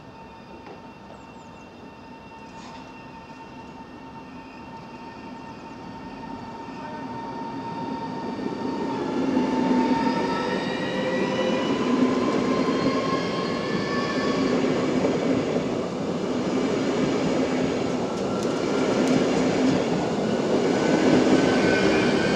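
ED250 Pendolino electric multiple unit running past on the nearest track. It grows louder over the first ten seconds as it draws level, then keeps a steady rumble of wheels on rail, with thin whining tones that slowly rise in pitch.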